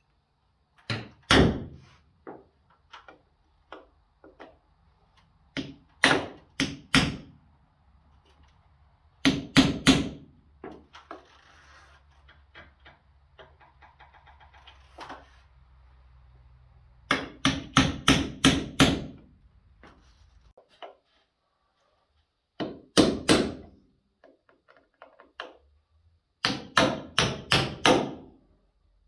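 Hammer tapping a transfer punch through a roof visor's mounting holes to mark the sheet-metal cab roof for drilling. The strikes are sharp and come in short runs of two to six quick blows, repeated several times.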